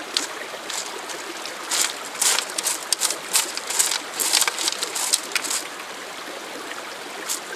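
Creek water running steadily, with a run of short, sharp splashy sounds over a few seconds in the middle.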